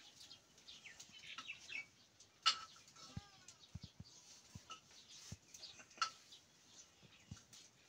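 A metal ladle clinking against a steel cooking pot as it is stirred on the wood fire: a few sharp clinks with a short ring, the loudest about two and a half seconds in and another about six seconds in.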